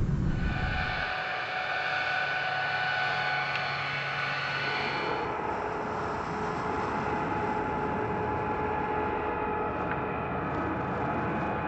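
Jet aircraft engine whine from the MQ-25 Stingray's turbofan: steady high tones over a rushing noise, with the tones changing about five seconds in.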